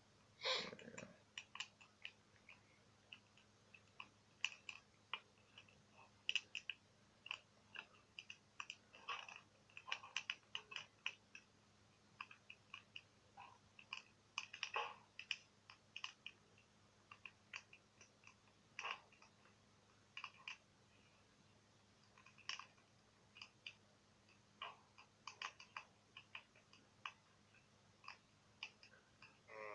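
Faint crackling of a large wood bonfire: irregular sharp pops and snaps scattered at random, with one louder pop about half a second in.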